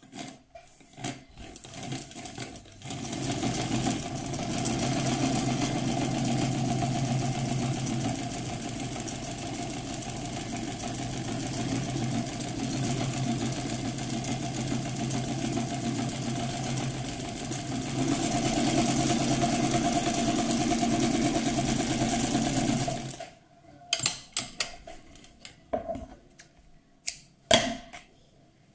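Łucznik 444 domestic sewing machine stitching fabric, running steadily for about twenty seconds and getting a little louder about two-thirds of the way through, then stopping abruptly. Scattered clicks and rustles follow as the fabric is handled.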